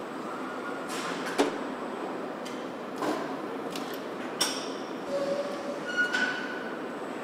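Car assembly-line machinery: a steady mechanical noise with several sharp clicks and clanks, about one every second and a half. A short hum about five seconds in and a brief high whine just after six seconds, from the robot fixture's actuators working.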